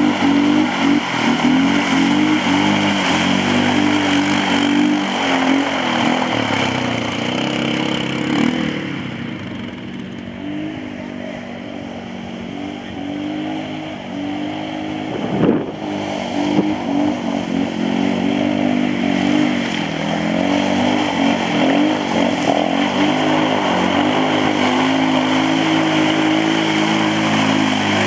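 Quad bike (ATV) engines revving and labouring as the machines are driven through deep mud, dropping back for a few seconds in the middle, with a single knock about halfway through.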